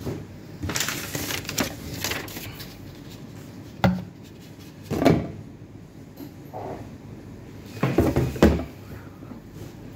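Irregular handling noises on a workbench: knocks and scrapes with rustling paper. There is a sharp click about four seconds in, and short louder clatters around five and eight seconds.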